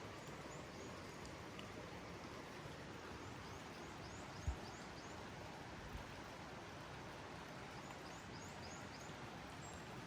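Steady soft hiss of rain falling in a forest, with small birds chirping in short runs of high notes. A low thud about halfway through and a fainter one a moment later.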